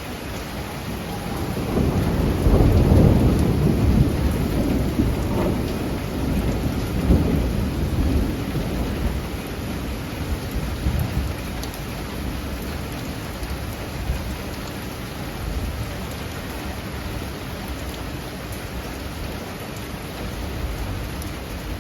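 Heavy typhoon downpour falling steadily, with a long roll of thunder that swells about two seconds in, surges again a few seconds later and rumbles away over several seconds.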